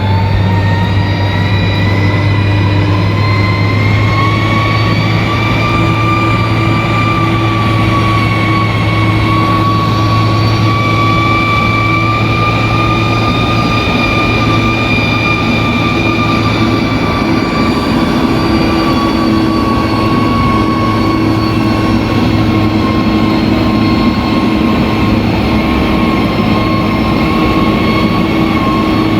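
Bulldozer's diesel engine running steadily under load, with a high whine over the low engine hum; the whine rises slowly in pitch over the first few seconds and then holds.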